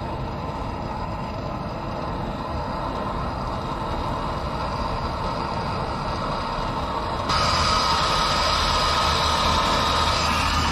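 Handheld gas torch burning with a steady hissing rush while it heats driveshaft bolts to free them. It gets suddenly louder about seven seconds in, with a low hum added.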